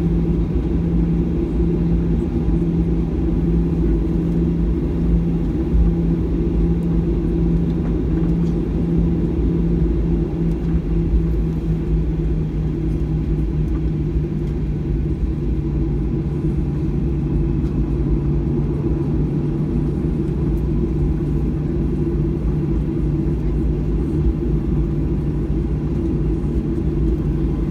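Cabin drone of a Boeing 737-800 taxiing, its CFM56-7B engines at low taxi power. It is a steady rumble with a low hum that drops slightly in pitch about halfway through.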